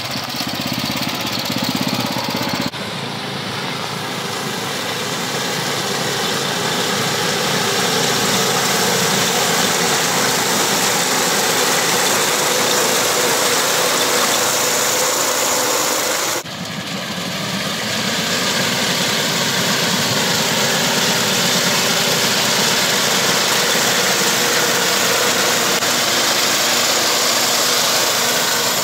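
Small air-cooled engine of a walk-behind rice reaper running steadily under load while its cutter bar mows through standing rice. The sound breaks off abruptly twice, about 3 and 16 seconds in, and picks straight up again.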